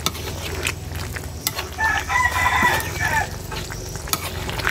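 A rooster crows once in the background, one drawn-out call starting about two seconds in. A metal ladle stirs and clicks against the wok of simmering curry.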